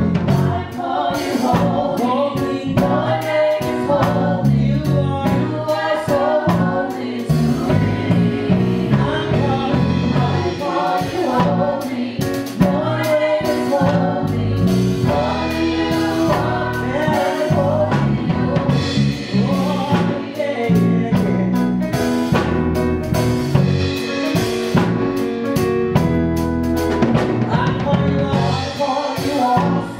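Three women singing a gospel worship song together into microphones, over instrumental accompaniment with drums and a low bass line.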